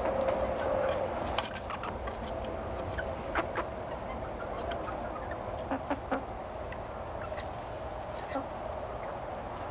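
Buff Orpington hens clucking quietly among themselves, with a few short sharp taps scattered through.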